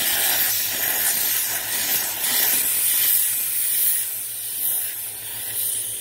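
Compressed air hissing steadily at the bottom of the filter/regulator bowl as the air-filter line is re-pressurized after a filter change. The hiss cuts off suddenly near the end.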